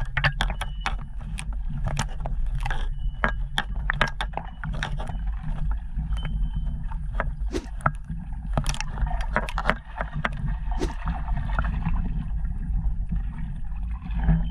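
Lake water sloshing and splashing at the shore, with many irregular clicks and knocks over a steady low rumble.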